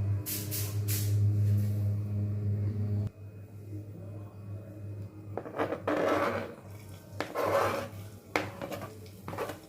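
Pan and kitchen utensils being handled on the stove: a few short scraping, clattering sounds in the second half. A steady low hum runs under the first three seconds and stops suddenly.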